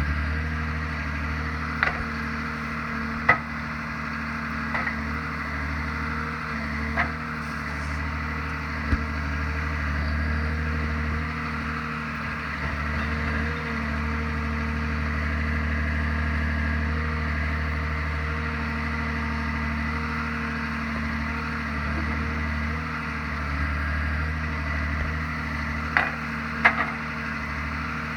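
Forestry forwarder's diesel engine running steadily at a constant drone, with a few sharp knocks and clanks from the machine and its load, the last two near the end as the crane's grapple works at the log pile.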